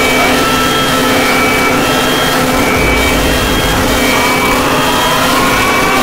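Loud, distorted mock emergency-alert alarm: a harsh wall of noise over a steady low drone, with short high beeps alternating between two pitches about twice a second. Rising siren tones come in about four seconds in.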